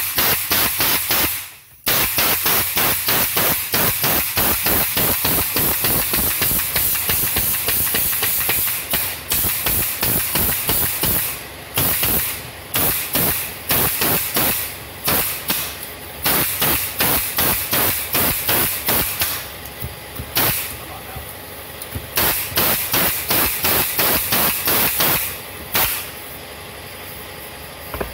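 Pneumatic brad nailer/stapler driving half-inch staples through hardboard into a wooden frame: quick runs of sharp shots, about five a second, separated by short pauses.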